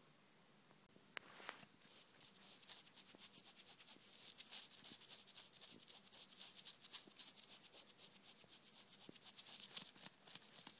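Faint, rapid scratchy rubbing strokes, about five a second, starting about a second in after a couple of sharp clicks.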